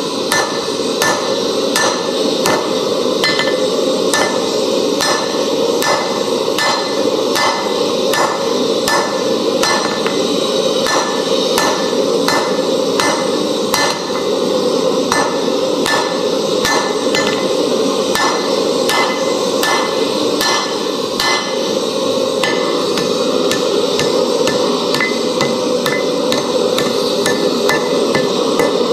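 Hand hammer striking a red-hot steel bar on a homemade mild-steel plate anvil, blow after blow in a steady rhythm, each strike ringing off the anvil.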